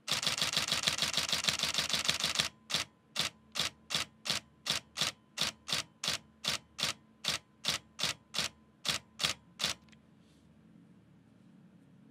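Nikon D750 DSLR's shutter and mirror firing a continuous high-speed burst of 14-bit RAW frames, then after about two and a half seconds dropping to separate clicks about three a second as the buffer fills, and stopping about ten seconds in.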